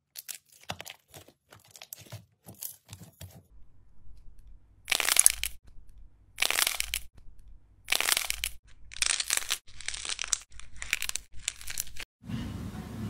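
Hands stretching and pressing sticky glittery slime, giving a quick run of small clicks and pops. Then a firm slime block is squeezed in a series of noisy squishes about a second apart, and near the end water sloshes as a sponge block is pressed under water.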